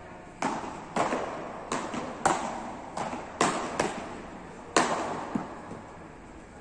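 Beach tennis paddles striking the ball in a rally: about nine sharp pops over some five seconds, each ringing on in the echo of a large hall.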